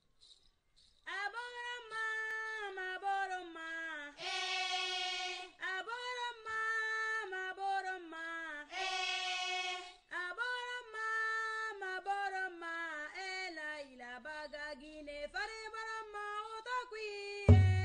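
Background music: a slow solo melody, sung with no accompaniment, gliding from note to note; drums and percussion come in at the very end.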